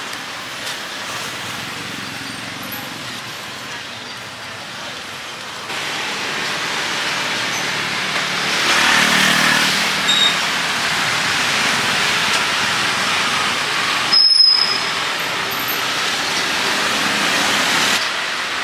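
Busy street ambience: road traffic passing steadily, with a louder stretch about halfway through, and voices in the background.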